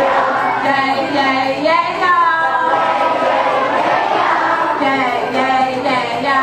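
A group of voices singing together, children with a woman singing into a microphone, over the noise of the children in the hall.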